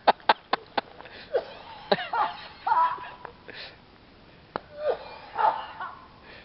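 Quick steps at the start, then a man coughing and groaning in short fits after a blast of bear pepper spray.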